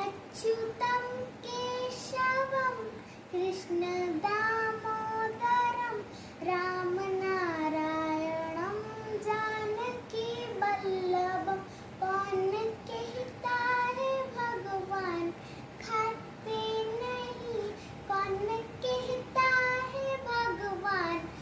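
A young girl singing a Hindu devotional song to Krishna solo, with no instruments. The melody moves through held, gliding notes with short breaks for breath.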